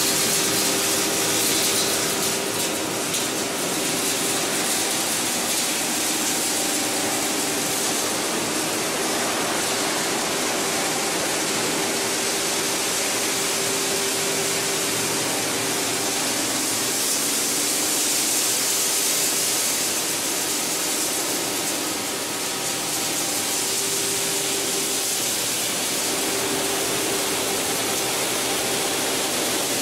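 PET bottle washing line running: a steady rush of water and machine noise, with a faint hum that fades in and out.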